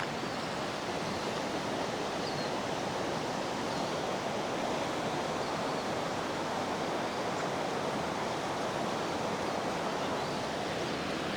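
Steady rush of flowing water, like a stream or small waterfall, with a few faint high chirps over it.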